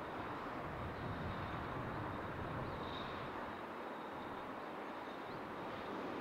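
EH500 electric locomotive and its container freight train approaching from a distance, a steady running noise of the train on the rails.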